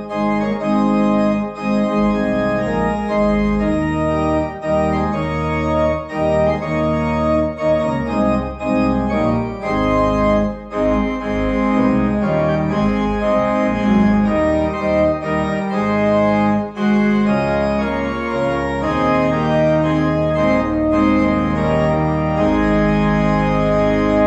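Church organ playing a piece in sustained chords, with low bass notes moving underneath and the harmony changing every second or so.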